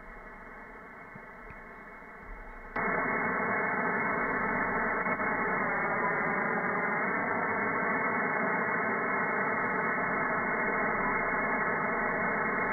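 Shortwave receiver audio in lower sideband while tuned to the RWM time-signal station on 4997 kHz: band-limited static hiss with several steady whistling carrier tones. It jumps louder about three seconds in.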